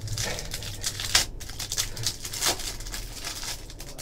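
Plastic wrapper of a trading card pack crinkling and tearing as it is pulled open by hand, with sharper crackles about a second in and again about two and a half seconds in.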